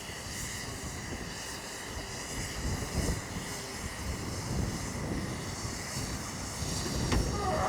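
A railway locomotive running steadily, with a continuous engine drone and rumble, and one sharp click near the end.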